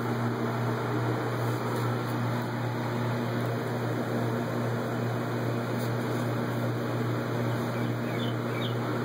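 A steady low mechanical hum over a hiss, like a nearby machine running continuously. A bird chirps a few times near the end.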